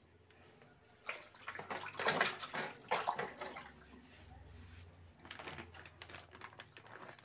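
Water splashing from a tap into a steel kitchen sink, strongest for a couple of seconds about a second in, then softer.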